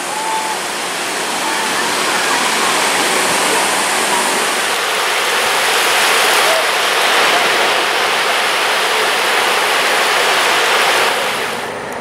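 Beach ambience: a steady rushing wash of small surf at the shoreline mixed with a busy crowd's distant voices. It grows louder through the middle and drops away about a second before the end.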